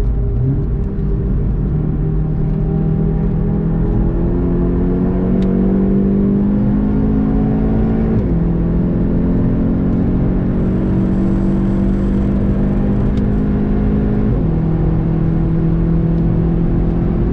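Volkswagen Golf GTI TCR's turbocharged 2.0-litre four-cylinder engine under hard acceleration, heard from inside the cabin. The engine note climbs steadily, drops at an upshift about 8 seconds in, climbs again and drops at a second upshift about 14 seconds in. Steady road and tyre noise runs underneath.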